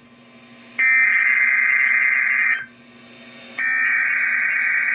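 Emergency Alert System SAME digital data bursts received over the radio: a harsh, warbling data screech starting about a second in and lasting nearly two seconds, then a second identical burst after a one-second pause. A low steady hum lies underneath.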